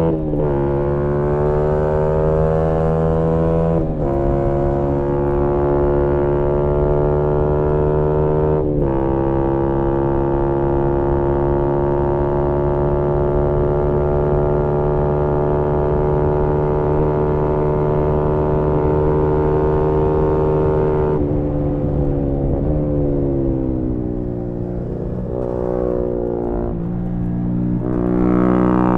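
Single-cylinder 125 cc four-stroke engine of a 2018 Yamaha MT-125 with a GPR aftermarket exhaust, heard onboard while riding. The revs drop sharply three times in the first nine seconds or so, at upshifts, then hold fairly steady for about twelve seconds. After that the revs fall away as the throttle closes, then climb again near the end.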